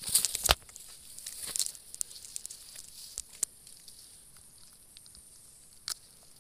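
A caught spiny eel (baam) thrashing on dry grass and dirt while hands grab at it: a burst of rustling crackles and slaps in the first half second, more rustling a second or so later, then occasional single taps as it is held.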